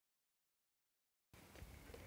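Near silence: the track is muted, then faint room tone comes in about a second and a half in.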